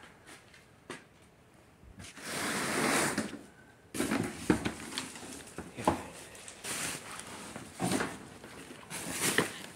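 Cardboard boxes being handled in a cluttered room: a rough scraping rustle as one is slid or dragged, then a series of knocks and thuds as boxes are moved and dropped.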